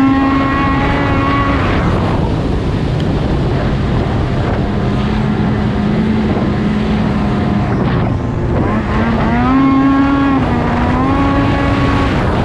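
Two-stroke race snowmobile engine running at high revs under way. The pitch holds high, falls back about two seconds in, then climbs again around nine seconds in and holds before easing off near the end.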